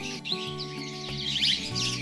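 Lovebirds chirping in quick high notes over background music of sustained, stepping notes.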